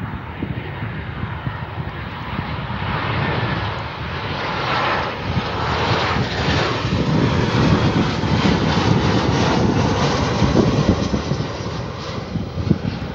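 Boeing 737-800's CFM56-7B turbofan engines as the jet passes low by, a broad jet roar building to its loudest midway and easing off near the end, with a faint falling whine early on.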